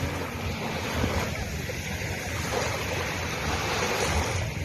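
Sea waves breaking and washing up on a beach, a steady rush of surf.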